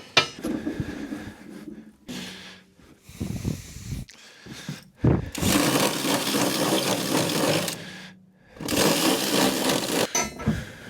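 A power tool running in several bursts of a few seconds each, with short pauses between them.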